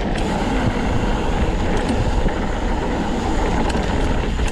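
Hardtail mountain bike riding along a dirt trail: a steady rushing of tyres rolling and air moving past, with a few faint clicks from the bike.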